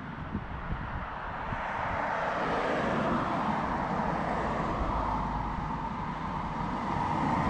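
Car road noise, tyres and engine, growing louder over the first two seconds and then holding steady.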